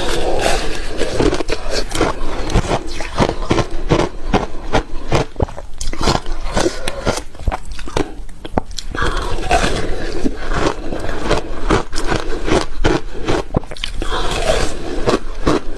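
Ice being bitten and crunched between the teeth in big bites: a dense, continuous run of sharp cracks and crackles, easing off briefly about eight seconds in.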